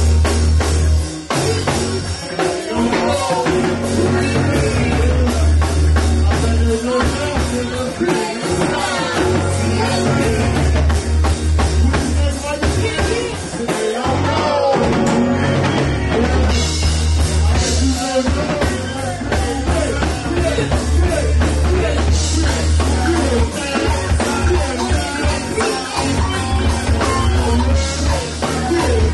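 Live band performing: several voices singing into microphones over a drum kit, guitar and a deep, sustained bass line.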